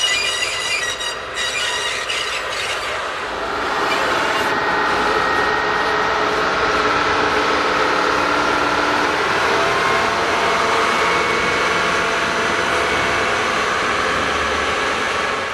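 A slow-moving locomotive and its train on curved track. The wheels squeal briefly near the start, then give way to a steady running noise with faint held whining tones.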